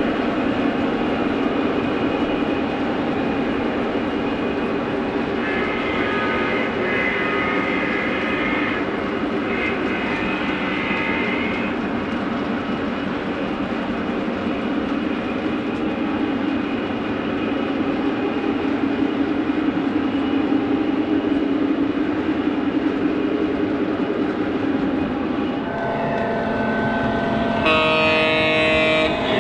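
O-gauge model freight train of tank cars rolling past on three-rail track: a steady rumble of metal wheels on the rails with a humming drone. Near the end a second model locomotive, a Central of Georgia F-unit diesel, approaches and a louder pitched sound comes in.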